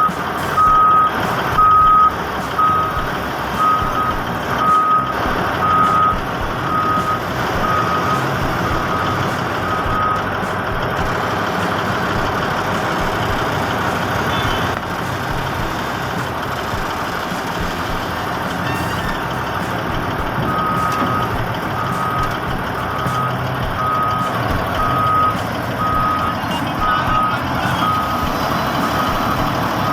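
Heavy machine's backup alarm beeping at a steady pace over continuous diesel engine noise. The beeping stops about ten seconds in and starts again about twenty seconds in, while the engine keeps running.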